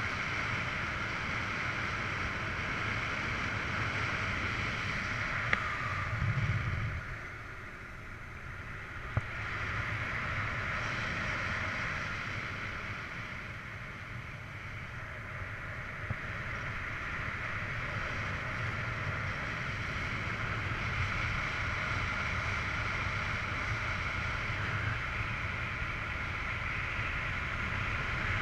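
Steady rush of air past a flying paraglider, heard as wind noise on the harness-mounted camera's microphone. It eases for a few seconds about a quarter of the way in, with two short clicks around then.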